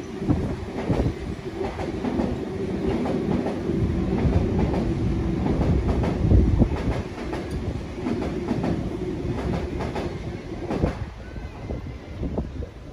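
Double-deck electric passenger train running through the station, its wheels clacking over rail joints over a steady hum and rumble, easing off near the end as the train clears.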